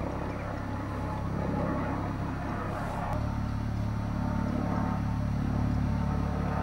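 Helicopter flying over low, a steady low drone of rotor and engine that shifts in tone about three seconds in.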